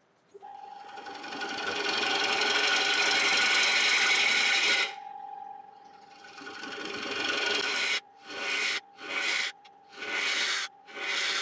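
A wood lathe starts up with a steady hum and high whine, and a turning tool cuts into the spinning dry yew bowl with a loud rasping scrape. One long cut is followed by a shorter one, then four quick passes near the end.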